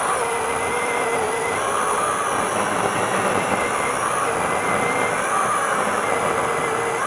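12-inch brushless electric chainsaw running continuously: a steady motor-and-chain whine that wavers slightly in pitch.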